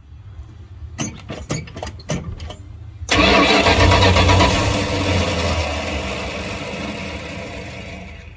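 1976 Dodge D200 pickup engine being cranked by the starter in a few uneven turns, then firing about three seconds in and running loudly. It revs at first, then settles and grows quieter.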